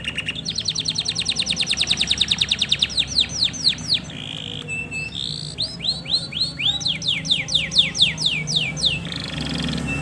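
Male domestic canary singing: a fast even trill of rapid repeated notes that turns into a run of downward-sweeping whistles. After a brief pause, about halfway through, comes a second phrase of descending sweeps.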